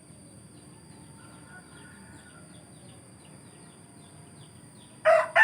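Faint background with small birds chirping, then near the end a rooster starts crowing loudly.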